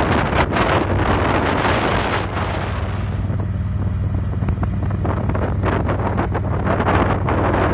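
Wind buffeting the microphone on a moving motorcycle, over the steady low hum of its engine at cruising speed. The hiss of the wind eases about three seconds in, while the engine hum carries on unchanged.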